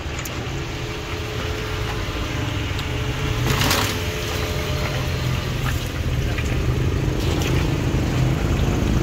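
Steady low engine rumble, like motor vehicles running close by, with a brief hiss about three and a half seconds in.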